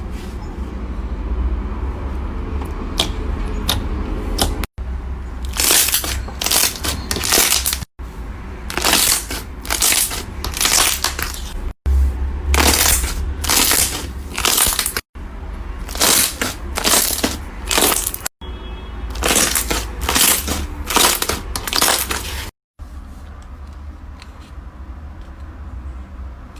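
Slime being squeezed and pressed by hand, giving off clusters of sharp crackles and crunches in short segments that cut off abruptly every few seconds, over background music. The crackling stops about 22 s in, leaving a quieter, steady sound.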